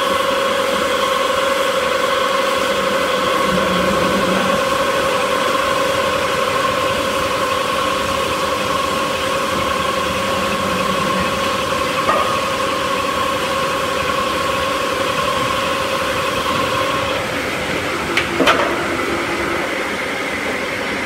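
Veneer peeling line machinery running: a steady electric motor whine over a mechanical hum. The whine shifts about three-quarters of the way through, with a couple of short sharp knocks.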